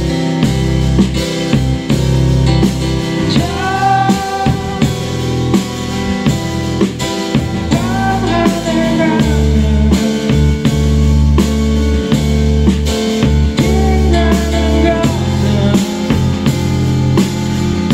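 Rock band music: drum kit and guitar over a steady beat and bass, with a voice singing a few long held phrases.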